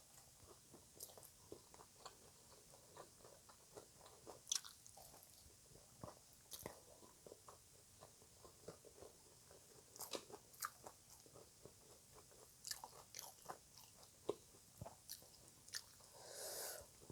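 Close-miked chewing and crunching of green papaya salad (som tam): irregular wet mouth clicks and crunches, with a longer, louder noise near the end.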